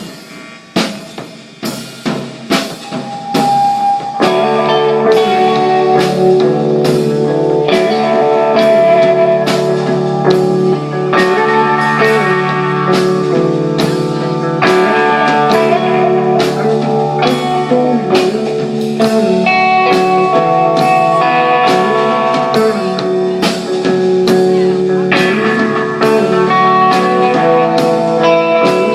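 Rock band playing live with electric guitars, bass guitar and drum kit: the drums play alone at about two hits a second, then guitars and bass come in at about four seconds with held chords over the steady beat.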